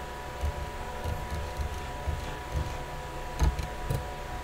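Two sharp clicks of computer keys, pressed to switch between open windows, over quiet room noise with a steady electrical hum.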